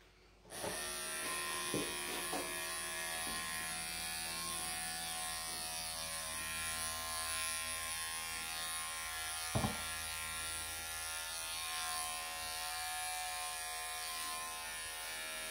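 Wahl electric pet clippers switch on about half a second in and run with a steady buzz as they clip a Persian cat's tail fur. A brief tap sounds about ten seconds in.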